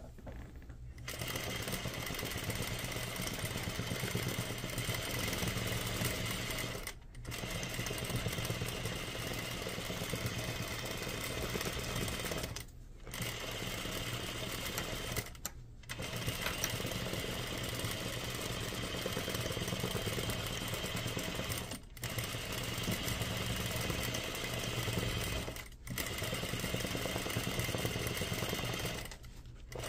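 Sewing machine running steadily, stitching pinned lace appliqué onto dress fabric, in stretches broken by about six brief stops.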